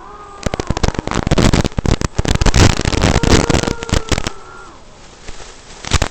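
Tinyhawk Freestyle micro FPV quad's small brushless motors whining, their pitch rising and falling with the throttle. From about half a second in to about four seconds in, loud crackling distortion breaks over the whine, and it returns briefly near the end: the bad sound the uploader warns of.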